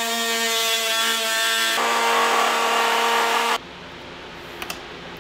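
Handheld rotary tool cutting through the plastic case of a lithium battery pack: a steady high whine over a grinding hiss that stops abruptly about three and a half seconds in, leaving only a couple of faint plastic clicks.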